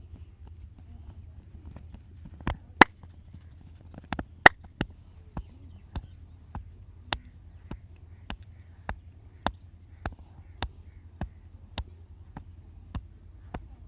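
Masseur's hands striking the client's body in a steady percussive massage rhythm: sharp slaps, nearly two a second, starting a couple of seconds in, with a few louder ones early in the run.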